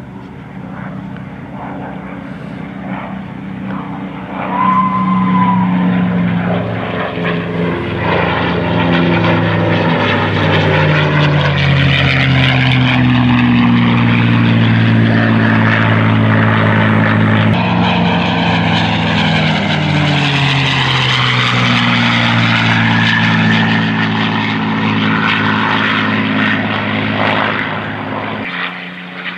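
P-51 Mustang's piston engine and propeller on a display pass, swelling loud about four seconds in. The engine note slides down in pitch as it goes by, then rises and falls again before fading near the end.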